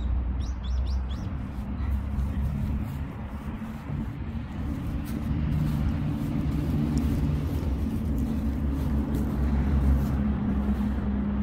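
Steady low rumble of motor traffic, with an engine hum that shifts in pitch partway through. A few short bird chirps come right at the start.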